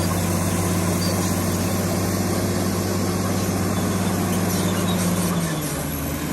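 Komatsu D65PX bulldozer's diesel engine running steadily, its pitch dipping briefly near the end as the revs drop.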